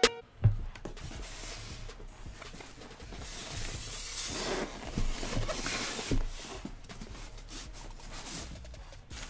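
Styrofoam packing sections being lifted off and handled, foam rubbing and scraping against foam, with a thump about half a second in and a few soft knocks in the middle.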